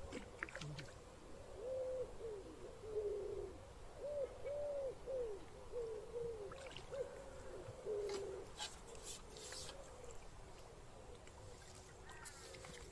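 A pigeon cooing: a run of low, repeated coos that stops a few seconds before the end, with a few short clicks in between.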